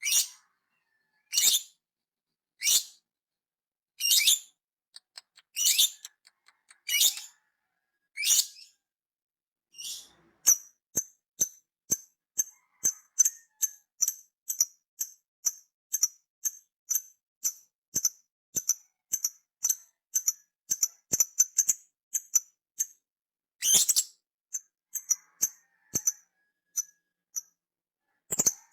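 A parrot calling: loud, shrill, high calls repeated about every second and a half, then from about ten seconds in a rapid run of short high chirps, two or three a second, broken by one louder call near the end.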